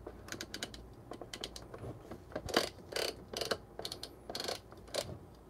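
Clear plastic bean hopper of a Solis Scala Plus burr grinder being turned by hand through its grind-setting detents: a run of irregular ratcheting clicks as it moves from the finest setting toward the coarsest.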